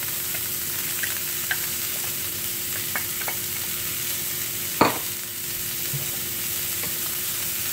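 Vegetables sizzling in olive oil in a hot skillet as riced cauliflower is poured in and pushed around with a wooden spatula. A few light clicks sound, and one sharp knock against the pan comes about five seconds in.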